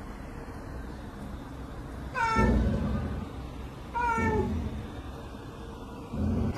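Domestic cat giving two meows that slide down in pitch, about two seconds apart, as it squares up to a dog. A short low sound comes near the end.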